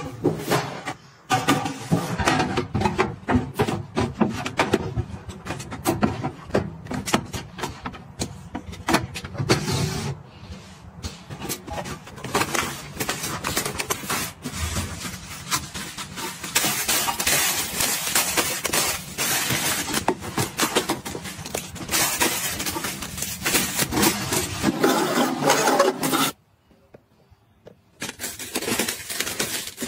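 Close-up handling sounds: plastic wrapping and packets crinkling and rustling, with clicks, clatters and scrapes as a wire rack and small household items are moved and set into a cabinet drawer. About three seconds before the end it drops to near quiet for a second and a half.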